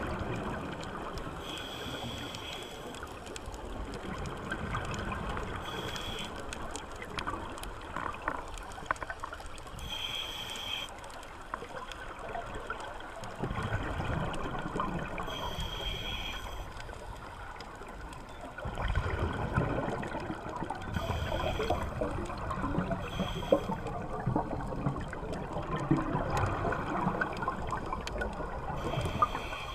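Scuba regulator breathing underwater: a short hiss of inhalation every four to six seconds, and between breaths the gurgling and rumbling of exhaled bubbles.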